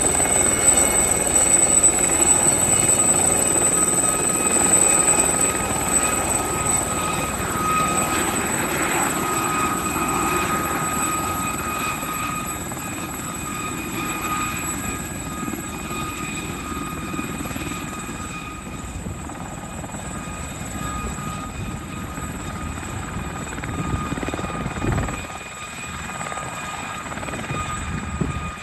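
Aérospatiale Gazelle helicopter hover-taxiing: the rush of its main rotor under several steady high whines from its Turbomeca Astazou turboshaft and Fenestron shrouded tail rotor. The sound slowly fades as the helicopter moves away.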